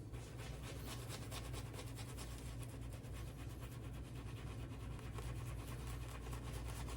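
A shaving brush with a Boti Foregoer knot swishing soft and fast through shaving soap, building lather in quick, even strokes.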